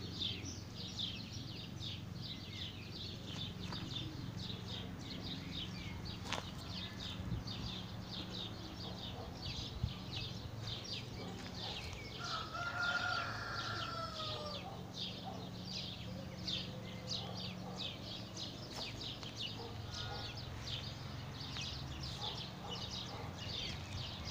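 A rooster crows once, about twelve seconds in. Throughout there is a rapid high chirping, about three or four chirps a second, over a steady low hum.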